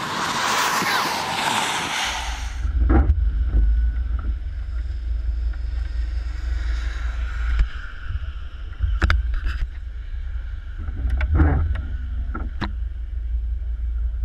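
Wind buffeting the microphone: from about two seconds in, a heavy, uneven low rumble with scattered sharp taps and crackles. Before that, a steady hiss.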